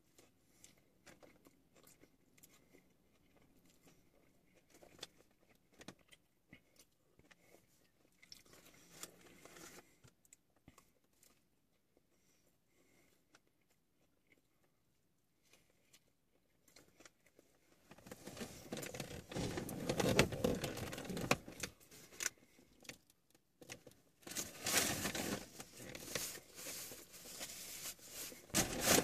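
A person chewing and eating a burger, with faint scattered mouth clicks. From a bit past halfway, louder stretches of paper-wrapper rustling and hand noise.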